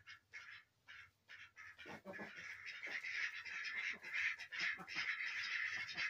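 A flock of domestic ducks quacking: separate short quacks a few times a second at first, then about two seconds in many ducks quacking at once in a louder, continuous chatter.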